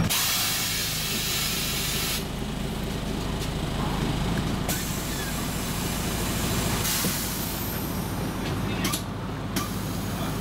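Scania MaxCi city bus at a stop: a sudden loud hiss of compressed air from its pneumatic system, which eases after about two seconds, with more hissing coming and going over the diesel engine idling.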